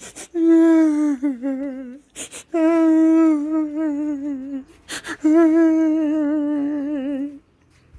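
A person's voice making three long held tones, each sliding into a quick wavering wobble at its end, with a sharp breath in before each one.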